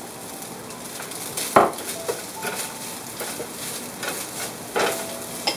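A spatula stirring and scraping a noodle and vegetable filling in a nonstick frying pan, with a faint sizzle. There is one sharp knock about a second and a half in, and a few lighter clicks near the end.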